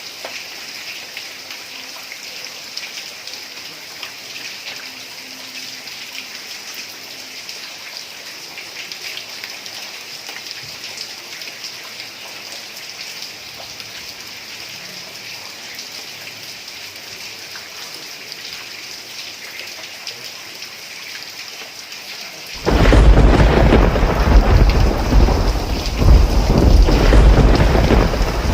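Heavy rain falling steadily on a tiled roof. After about twenty-two seconds a loud clap of thunder breaks in suddenly and rumbles on for several seconds, beginning to fade near the end.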